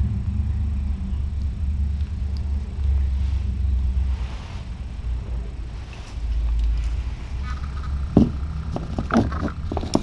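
A steady low rumble, with a run of small clicks and knocks in the last two seconds from a phone being handled and fitted to a small tripod.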